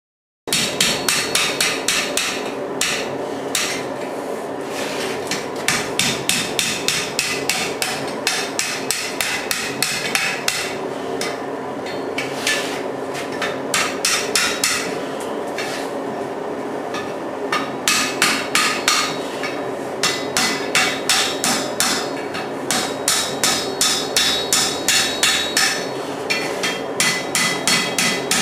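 Blacksmith's hand hammer striking iron on an anvil in runs of quick blows, about three a second, with short pauses between runs, over a steady background noise. The blows start about half a second in.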